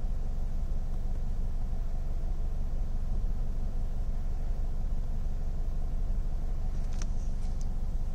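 Toyota GT86's 2.0-litre flat-four boxer engine idling at about 1000 rpm, a steady low rumble heard from inside the cabin. A few soft clicks come about seven seconds in.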